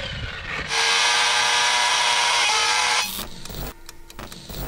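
Electric RC truck's brushless motor and drivetrain whining steadily at high revs for about two seconds. It then cuts to a run of choppy static crackles and clicks.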